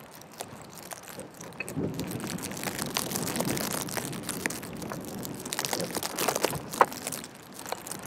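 A plastic grocery bag crinkling and rustling around a camera as its lens is swapped by hand, with small clicks and one sharp click near the end.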